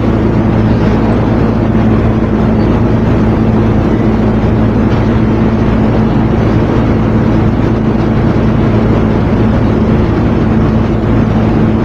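A steady machine hum, even in level and pitch, with a low drone and a noisy hiss over it.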